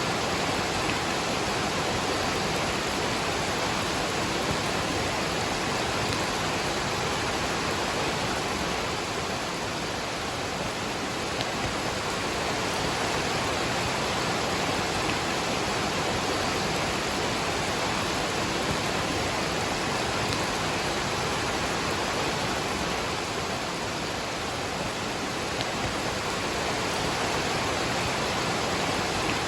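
Waterfall and rain: a steady, even rush of falling water.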